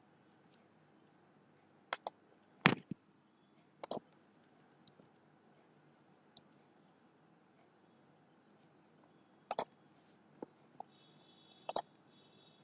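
Computer mouse clicks and keyboard key presses: about a dozen short, sharp clicks, singly and in quick pairs, the loudest about two and a half seconds in.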